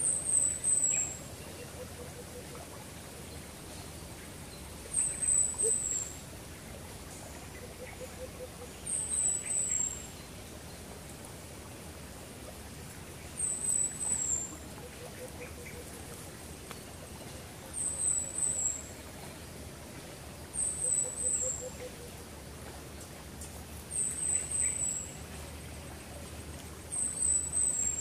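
Bird calling: a high, thin call of three quick falling notes, repeated about every three to four seconds. A fainter low trill comes now and then between the calls.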